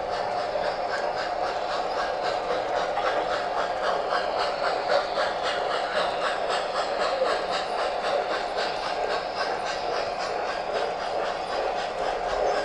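MTH O-scale model train running on the layout: a steady rumble with an even, rhythmic clicking several times a second.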